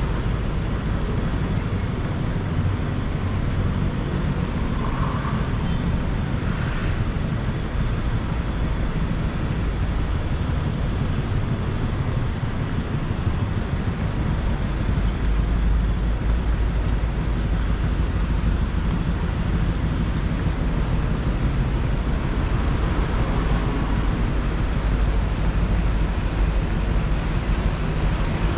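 Steady low rumble of city background noise, with a few faint high chirps about one to two seconds in.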